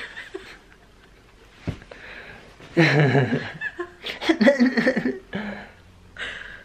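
Two people laughing and chuckling in several short bursts.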